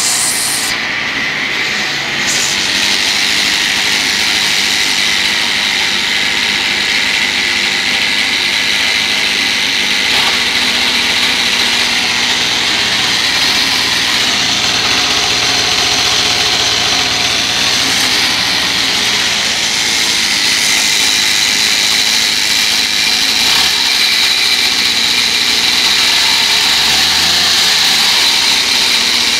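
31cc petrol string-trimmer engine on a homemade RC car, running loud and steady with a high-pitched buzz.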